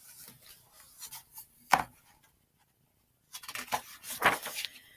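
Handling of a picture book as a page is turned: soft rustles, a sharp tap about two seconds in, then a longer run of paper rustling and knocks in the second half.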